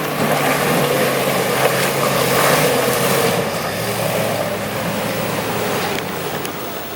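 A 4x4 truck's engine running, with a steady rushing noise over it, growing gradually quieter toward the end.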